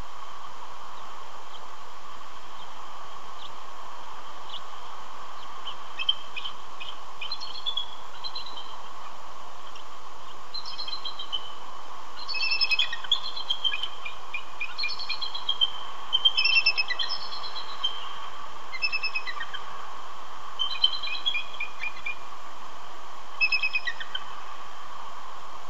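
Bald eagles calling to each other: bursts of rapid, high-pitched chittering notes, starting about six seconds in and busiest in the middle, over a steady hiss.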